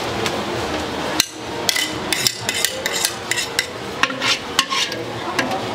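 Pad thai frying in a wok, then from a little over a second in a quick, irregular run of sharp metal clanks and scrapes as a spatula works the noodles against the wok.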